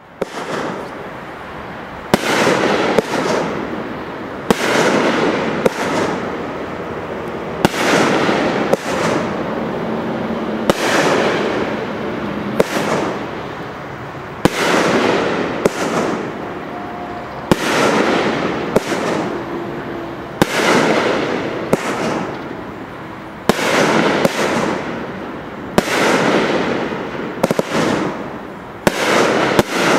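'The Big Package' consumer fireworks cake firing a long run of shots, one every second or so. Each shot is a sharp report followed by a fading hiss, about twenty in all.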